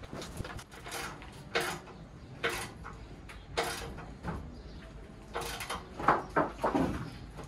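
Timber boards knocking and scraping against the wooden bearers of a truck deck as they are shifted and laid in place: separate knocks and scrapes every second or so, coming closer together near the end.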